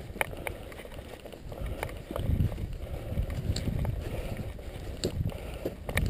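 Mountain bike rolling over a rough dirt trail: an uneven low rumble of the tyres and wind on the camera's microphone, with occasional sharp knocks as the bike rattles over bumps.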